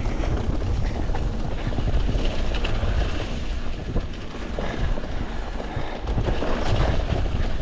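Wind buffeting an action camera's microphone as a Cannondale Habit 3 full-suspension mountain bike rides down a wet, muddy trail, with a steady low rumble from the tyres and bike and a few faint clicks from the rough ground.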